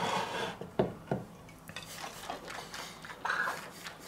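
Kitchen handling noises: a glass jar and an unglazed clay roaster (Römertopf) being moved on a wooden cutting board, with two light knocks about a second in.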